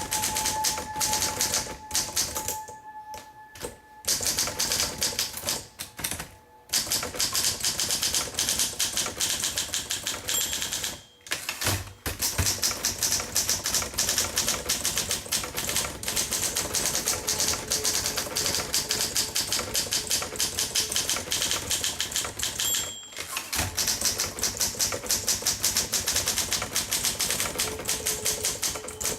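1958 Olympia SM3 manual typewriter being typed on: a quick run of key strikes that carries on throughout, broken by a few short pauses.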